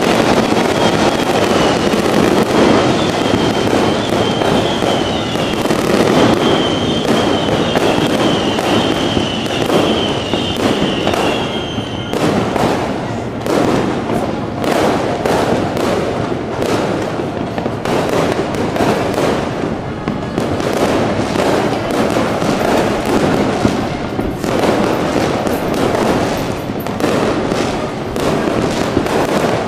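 Fireworks and firecrackers going off in a dense, continuous barrage of crackling and popping. A high wavering whistle-like tone runs over it for roughly the first twelve seconds, then stops.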